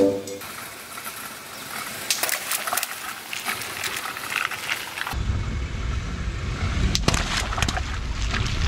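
Water balloons bursting under a car's tyres on wet concrete: a run of pops, crackles and splashes, then a low rumble from the car rolling over them, with a few sharp pops about seven seconds in.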